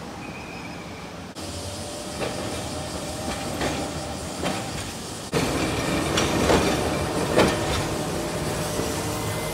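Hiroshima Electric Railway 650-class streetcar No. 653 running on street track, its wheels clacking over rail joints and crossings. It becomes louder about five seconds in as the tram passes close.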